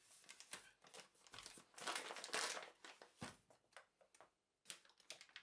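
Paper flour bag rustling and crinkling as it is handled and set down, loudest about two seconds in, with a few light knocks after that.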